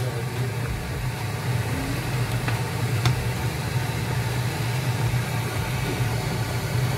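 Steady low hum and hiss of a running fan, with two light clicks of a metal slotted spatula against the frying pan about three seconds in.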